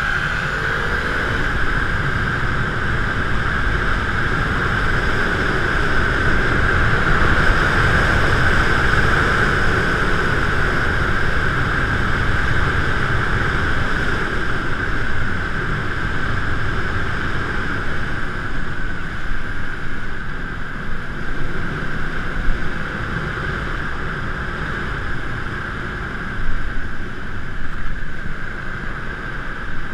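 A moving bike recorded from a mount on the bike: wind rumble on the microphone, with a steady high whine over it.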